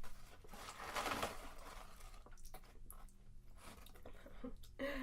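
Potato chips being chewed: crunching, loudest about a second in, then quieter scattered crunches and clicks.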